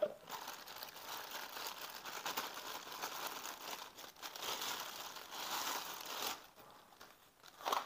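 Clear plastic bag crinkling as it is handled and slipped off a spinning reel, a dense crackling that quiets down about six seconds in.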